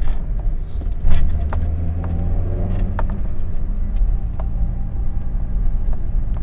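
Volkswagen Saveiro G4 pickup driving at about 40 km/h, heard from inside the cabin: a steady engine and road rumble, with a few sharp clicks or knocks, the loudest about a second in.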